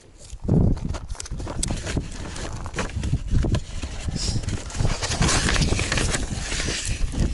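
Footsteps on desert dirt and gravel, with irregular low thumps and rustling from people moving about.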